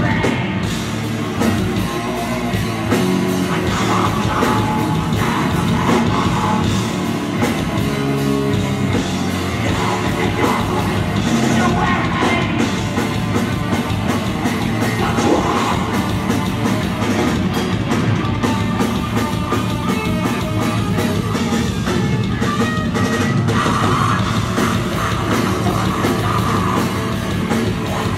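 Heavy metal band playing live and loud: electric guitars and a drum kit, with vocals over them.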